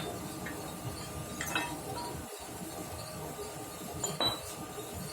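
Steel clinking: about three light metal-on-metal clinks, the last with a short high ring, over a faint steady hum, as the axe head and tools are handled while re-hardening the blades.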